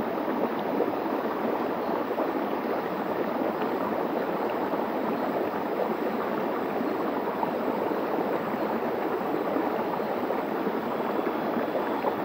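A shallow stream flowing over bare rock and spilling down a small step, a steady, even rush of water.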